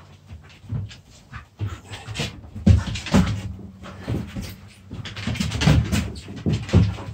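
Two young dogs play-fighting, with repeated short growls and whines and the scrabble of paws on the floor mat.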